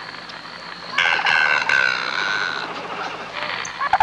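Mongoose calling: a long, high, wavering call that starts about a second in and lasts over a second, followed near the end by a rapid chattering call.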